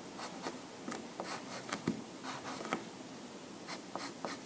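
Pencil scratching on paper in many quick, short strokes, faint, with a brief lull about three seconds in.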